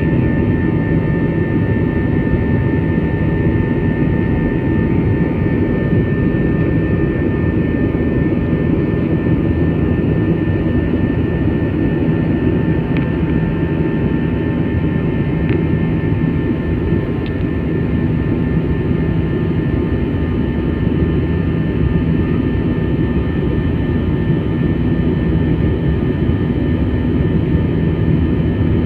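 Jet airliner's turbofan engines heard from inside the cabin during the climb after takeoff: a steady, loud rumble with a steady high engine whine over it.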